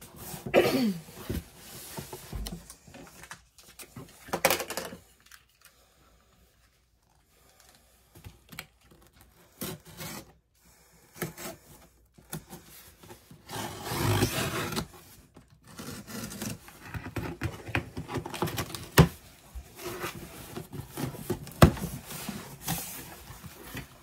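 Packaging being handled and opened by hand: irregular rubbing, scraping and tearing, with a few sharp clicks or knocks. There are a couple of seconds of near silence partway through.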